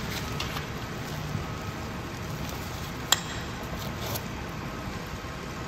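Hands working the straps on a rolled fire-hose bundle: faint rustling, and one sharp click about three seconds in, over a steady low rumble.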